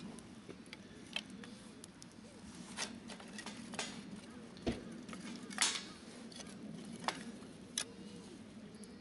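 Small wood campfire crackling, with irregular sharp pops, the loudest about halfway through.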